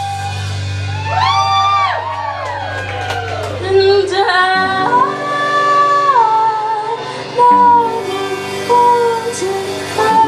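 Live rock band with a woman singing lead: her voice slides up into long held notes over sustained guitar and bass, entering about a second in.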